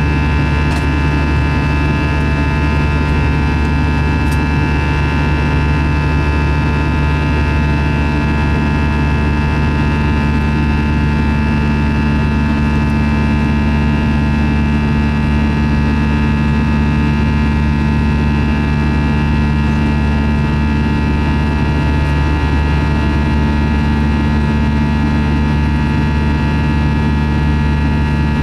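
Airbus A321 jet engines during the climb after takeoff, heard inside the cabin over the wing: a loud, steady drone with several steady whining tones above it.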